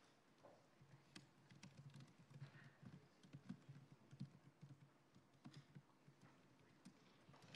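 Faint typing on a laptop keyboard: scattered single keystrokes over a low room hum.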